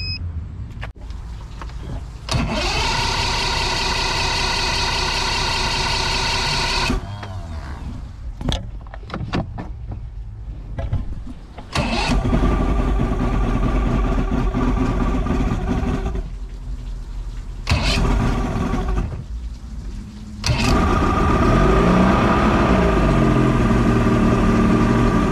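Speedboat engine turned over by its electric starter in several separate tries of a few seconds each. On the last try, about twenty seconds in, it fires and keeps running steadily, with a brief rise and fall in revs.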